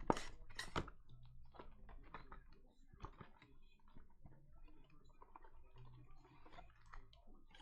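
Scattered light clicks, taps and rustles of trading cards and foil packs being handled and flipped through, with two sharper clicks right at the start.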